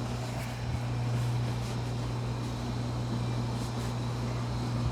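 Steady low mechanical hum under a faint even hiss, with no sharp crack or pop.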